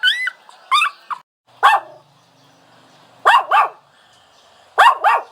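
A dog whining and barking: two short high-pitched whines in the first second, then a single short bark, then two quick pairs of barks.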